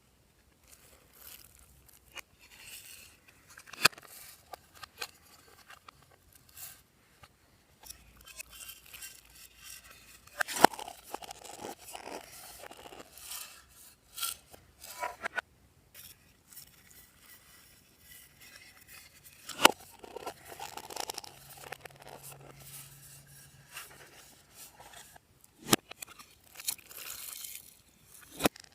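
Slime being worked by hand, with crackly squishing and scraping and many sharp clicks, several of them loud and at uneven intervals.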